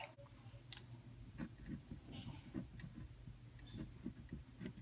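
Faint handwriting on paper: light scratches and small taps of the writing tip as numbers are written, over a low steady hum.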